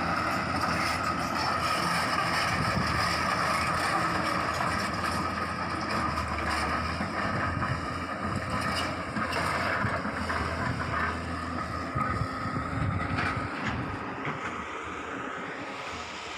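Hyundai excavator running, with a steady high whine over its engine noise, growing quieter over the last few seconds.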